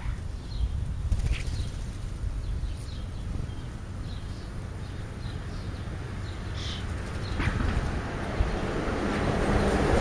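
Outdoor street ambience: a low rumble throughout with a few short, high bird chirps, and a vehicle growing louder near the end as it approaches.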